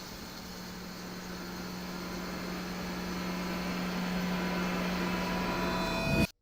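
Television static: a steady hiss over a low hum, slowly growing louder, then cutting off suddenly near the end.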